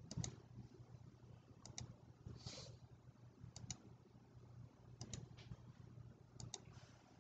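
Faint computer mouse clicks, five quick double clicks about one and a half seconds apart, as sketch lines are selected in a CAD program. A short soft hiss about two and a half seconds in.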